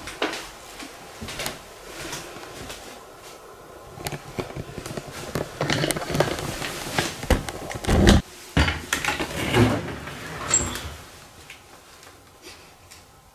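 Footsteps and handling knocks on a kitchen floor as an underfloor storage hatch is worked at and opened, with a heavier thump about eight seconds in and one short high squeak a little later.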